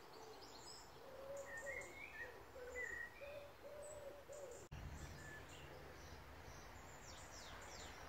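Faint pigeon cooing: a phrase of about six low coos over some three seconds, with a few small birds chirping faintly at a higher pitch.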